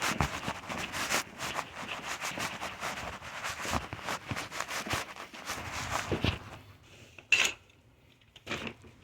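Irregular rustling, scuffing and light knocks, then one short sharp sound about seven seconds in, after which it goes nearly quiet.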